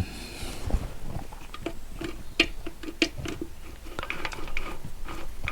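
Metal tools and engine parts being handled on a workbench: a run of irregular light clicks, taps and clinks, some with a short ring.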